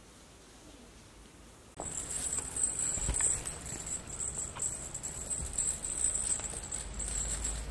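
Soft rustling and light taps of a short-legged cat padding across carpet with a feather wand toy in its mouth, the wand trailing along the floor. A high, steady buzzing hiss runs underneath from about two seconds in.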